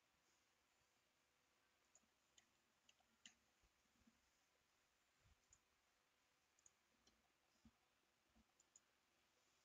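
Near silence with faint, scattered clicks of a computer mouse and keyboard: about a dozen single ticks, a few in quick pairs.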